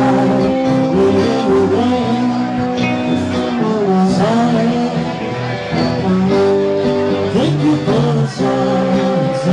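Live band playing: a man singing over electric guitar and drums.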